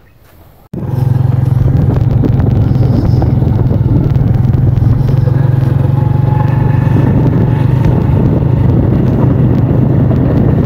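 A motorcycle ridden at a steady speed, its engine running with heavy wind rumble on the microphone. The sound starts abruptly under a second in and holds steady.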